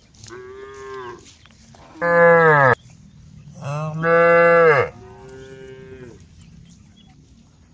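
Cows mooing: four moos in a row, the two in the middle much louder than the first and last, each call dropping in pitch as it ends.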